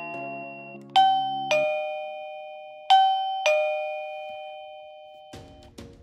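Eufy plug-in doorbell chime sounding its ringtone through its small speaker. The tail of a short bell melody fades, then a two-note ding-dong, high then low, rings twice about two seconds apart and fades away. Near the end a softer tune of quick repeated notes starts.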